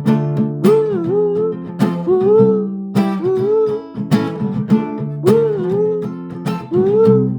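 A song: an acoustic guitar strummed in a steady rhythm under a voice singing wordless 'ooh' phrases. Each phrase slides up and falls back, and they repeat about once a second.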